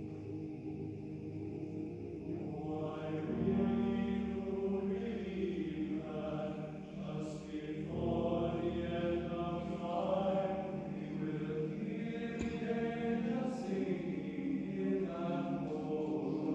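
Men's glee club singing slow, sustained chords. A low bass note comes in about three seconds in and the chord changes about halfway through.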